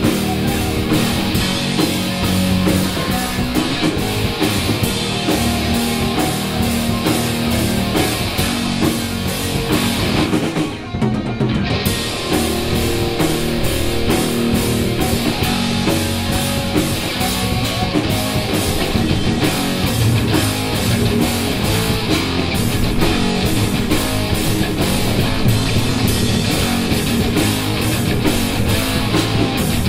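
A live heavy metal band playing: distorted electric guitars, bass guitar and drum kit, with a short break in the sound about eleven seconds in.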